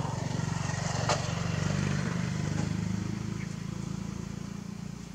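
A motor vehicle's engine running steadily, growing louder to about two seconds in and then fading, as if passing by. A single sharp click sounds about a second in.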